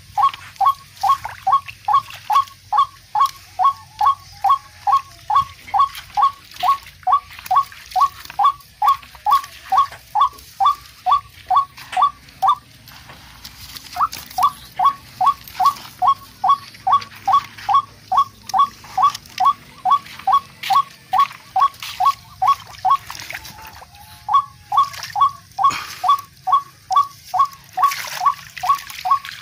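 Barred rail (tikling) calling: short, sharp notes repeated very evenly, about three a second. The calls break off for about a second near the middle and again briefly later on.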